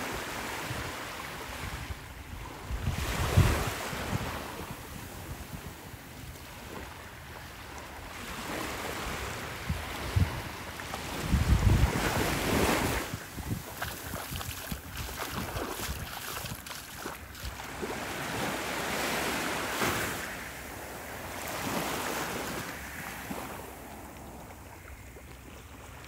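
Small waves lapping and washing up a sandy shore, swelling and fading in a few slow surges, with gusts of wind rumbling on the microphone.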